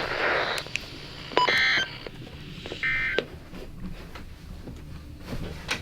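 NOAA Weather Radio end-of-message signal: two short bursts of SAME digital data tones, about a second and a half apart, played through a weather radio's speaker.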